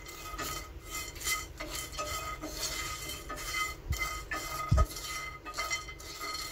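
Wooden spatula stirring and scraping whole dry spices as they dry-roast in a pan without oil, in quick repeated strokes of about three a second. One louder knock comes about three-quarters of the way through.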